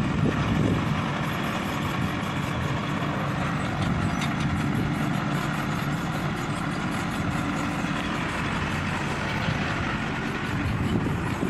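Engine of heavy machinery running steadily at an even speed.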